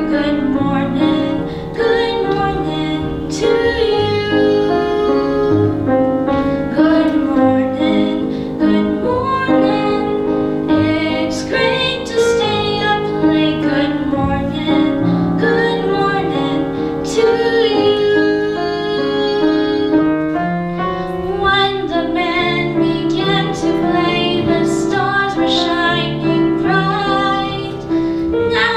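A young girl singing solo into a microphone with grand piano accompaniment, a continuous melody with held notes.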